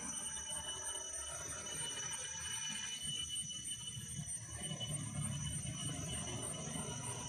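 Steady high-pitched drone of insects such as cicadas or crickets, with a low, uneven rumble beneath.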